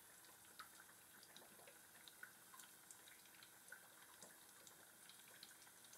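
Faint, scattered pops and crackles of zucchini slices shallow-frying in hot oil.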